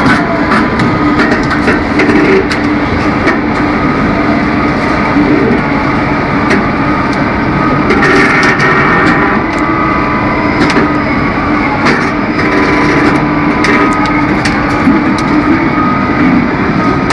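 Heavy machinery running steadily, with frequent sharp metallic knocks and clanks.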